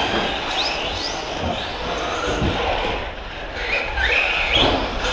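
Electric motors of radio-controlled short-course trucks whining as they accelerate and slow, the pitch rising sharply twice, with a few low thuds from the trucks on the track.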